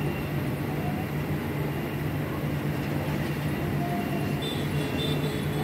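Steady hum of city street traffic heard from high above.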